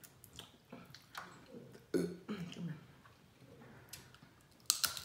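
Close-up mouth noises of eating seafood-boil crab legs: sucking and slurping sauce and meat off the shells, with wet lip smacks. A short throaty vocal sound about two seconds in, and a cluster of sharp smacks near the end.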